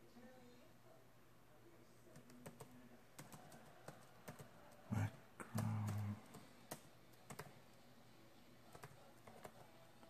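Keystrokes on a computer keyboard, irregular and unhurried, with a brief low voice sound about five seconds in.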